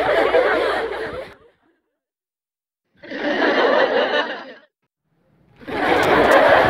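Laughter sound effects played one after another: one laugh trails off about a second and a half in, a short second laugh follows after a silent gap, and a third starts near the end.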